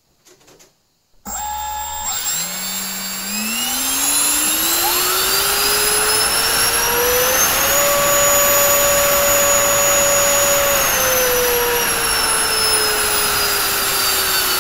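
Freewing 70 mm electric ducted fan on a 4S battery starting up about a second in. It spools up with a rising whine over rushing air, holds steady at high power for about three seconds, then slowly winds down as the throttle is eased back.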